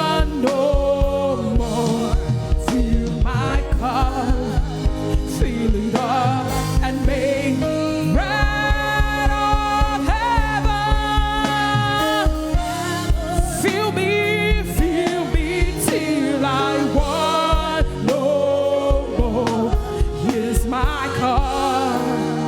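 Live gospel praise-and-worship singing: a voice sings over a band with a steady beat, holding long notes about a third of the way through.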